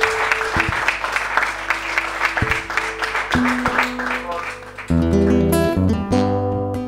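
Audience applause fading, with a few single acoustic guitar notes ringing over it; about five seconds in, an acoustic guitar starts strumming full chords, the intro of the next song.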